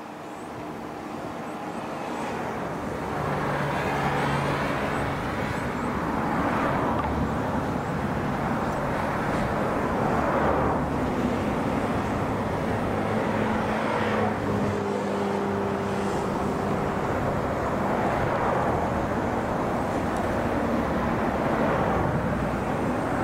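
Outdoor rush of motor traffic passing near the microphone. The noise builds over the first few seconds, then holds, swelling and fading several times, with a low engine hum at times.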